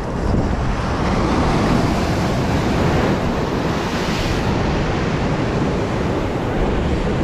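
Sea surf surging and breaking against shore rocks, a loud steady wash with a stronger breaker about three to four seconds in, and wind buffeting the microphone as a low rumble.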